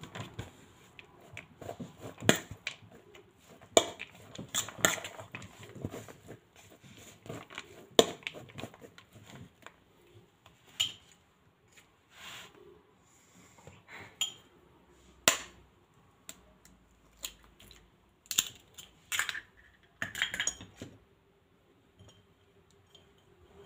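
A fork clinks and scrapes against a bowl in irregular sharp clicks while grated zucchini and carrot are stirred. In the second half an egg is knocked on the bowl and cracked open over the vegetables.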